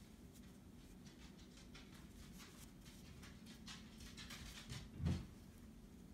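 Faint rustling of a cloth napkin as it is rolled and handled, with a soft low thump about five seconds in.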